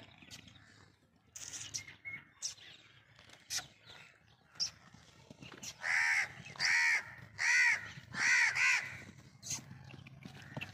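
A crow cawing four times in quick succession. Each harsh call lasts about half a second and rises then falls in pitch, starting a little past the middle.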